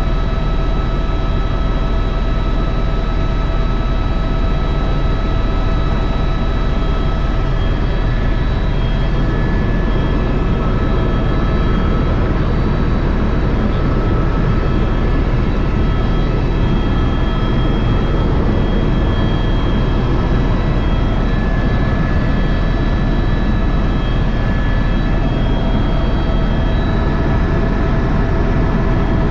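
Tour helicopter in flight: a steady, loud drone of engine and rotor with thin steady whine tones over it.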